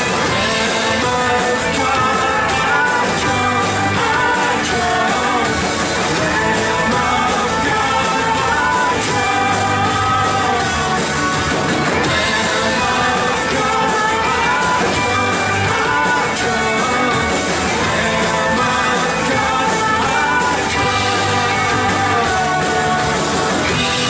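Live church worship band playing a rock-style song with guitars, drums and lead vocals singing over it.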